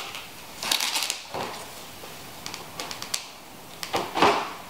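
Packing paper and plastic wrapping rustling and crinkling as wrapped items are lifted out of a cardboard box. It comes in several short bursts with a few light clicks, the loudest near the end.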